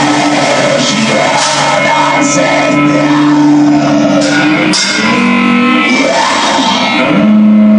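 Black metal band playing from a raw underground demo recording: distorted guitars with harsh shouted vocals.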